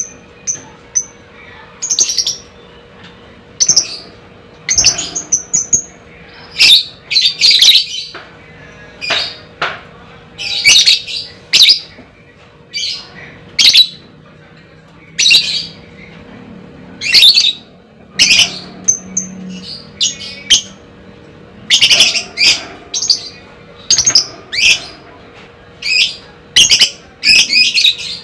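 A lovebird giving shrill, squawking chirps in short bursts about once a second, some in quick clusters of two or three, the fighter-bird chatter used to provoke other lovebirds into calling.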